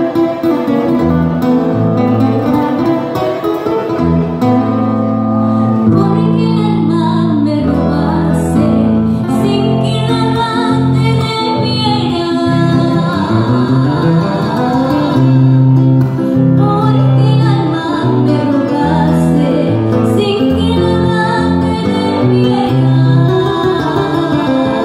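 Live band music: a woman sings into a microphone over a strummed acoustic guitar and a steady bass line.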